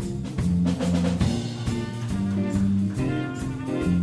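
Middle-school jazz band playing live: bass notes and drum kit with steady cymbal strikes, with saxophones and brass coming in more strongly about three seconds in.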